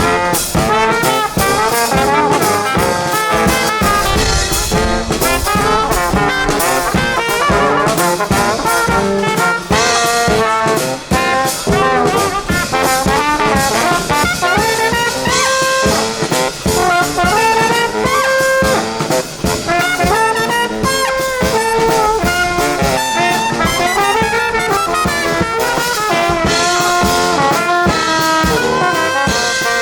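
Brass band playing a tune live, trumpets and trombones carrying the melody over a steady beat.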